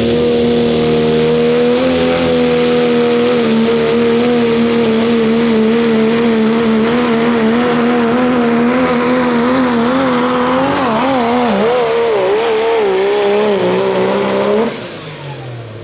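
Engine of a pulling vehicle running hard at high, steady revs during a pull. About ten seconds in the pitch begins to waver and sag, and near the end the engine sound cuts off abruptly.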